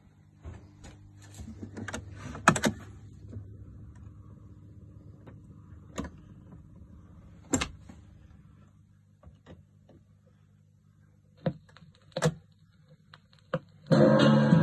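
Ekco record player's autochanger cycling: a series of mechanical clicks and clunks as the record drops onto the turntable and the pickup arm moves into place, over a steady low hum from the amplifier. Music starts from the player's speaker near the end.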